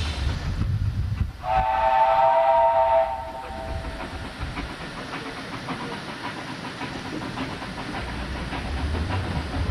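Narrow-gauge steam locomotive's whistle sounding about a second and a half in, several tones at once, held for nearly two seconds and then fading. After it the train is heard running, with a faint regular beat.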